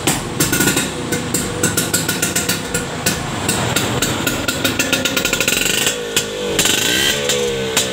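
Vespa VNB's single-cylinder two-stroke engine running through a BigBox aftermarket exhaust, firing in a rapid, uneven run of sharp pops. About six seconds in it is revved up and down a few times.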